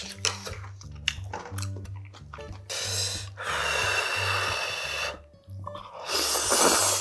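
Spicy instant ramen noodles slurped hard from chopsticks: a long slurp about three seconds in and another near the end, after a stretch of chewing and small clicks. Background music with a steady bass line runs underneath.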